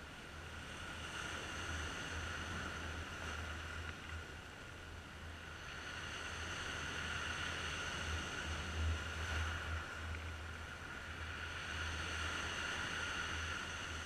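Sea waves washing and breaking over rocks, rising and falling in slow swells a few seconds apart.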